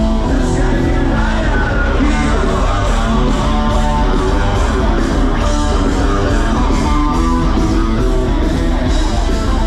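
Rock band playing loud, with electric guitar, at a live outdoor concert.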